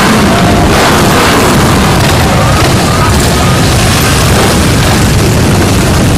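Many motorcycle engines running together as a procession of bikes rides past, a loud, steady, dense noise heavy in the low end, with no single bike standing out.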